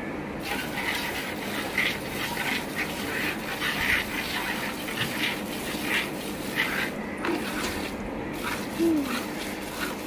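Cow being milked by hand: rhythmic squirts of milk from the teats hitting the milk in a steel pail, about two squirts a second.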